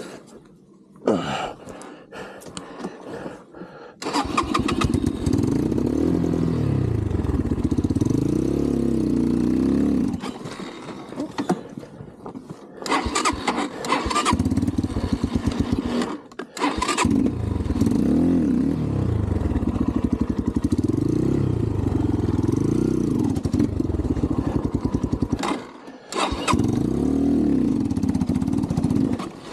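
Xpro Templar X 250cc dirt bike engine started and revved up and down, cutting out twice and being restarted each time. The stalling is typical of this bike, whose carburettor idle screw was set too low, leaving it bogging and dying.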